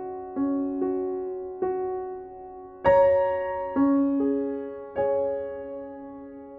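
Background piano music, slow single notes and chords that ring and fade, a louder chord about three seconds in.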